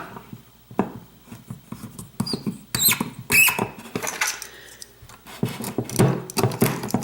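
Key being inserted and turned in a pin-tumbler lock core: a run of small metallic clicks and scrapes with a few short, high squeaks near the middle, the key catching slightly as it turns.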